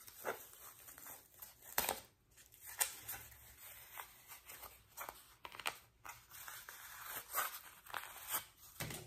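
Cardboard sock jig being slid out of a cotton sock and the sock handled: irregular scraping and rustling of cardboard against fabric, with a few sharper scrapes.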